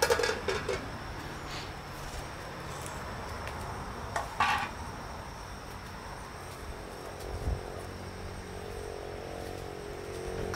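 Quiet outdoor cooking sounds: a few brief clinks and knocks of handled cookware, at the start and about four seconds in, and a low knock past the middle, over faint steady insect chirring.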